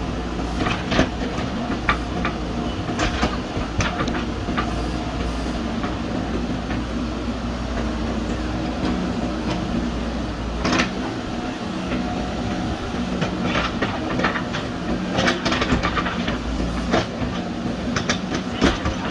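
JCB backhoe loader's diesel engine running steadily while digging, with short knocks and clanks from the machine every few seconds.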